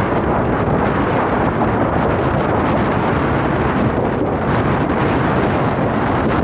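Ocean waves washing onto the shore, a steady, even rush of noise with no single crash standing out.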